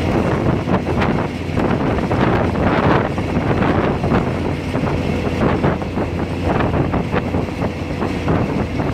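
Moving passenger train running along the line: a steady rumble of wheels on rails with wind buffeting the microphone at the open window.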